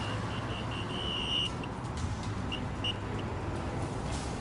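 Passing road traffic with a traffic police officer's whistle blowing a run of short peeps, one longer blast about a second and a half in, and a few more short peeps near the three-second mark, signalling a car to pull over.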